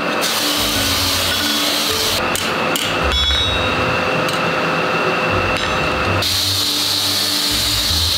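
Hand hammer striking a hand-forged hoe on a steel anvil, fitting and setting its wooden handle, over steady workshop noise.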